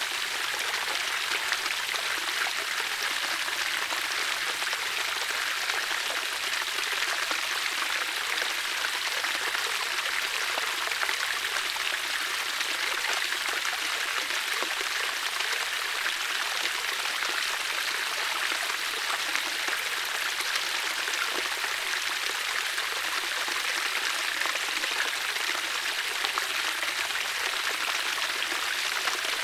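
Running water rushing steadily, an even hiss with fine splashy crackle and no change in level.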